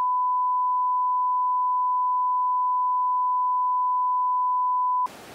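Steady 1 kHz sine test tone, cut off abruptly about five seconds in and replaced by the quieter, even hiss and low hum of a bus cabin.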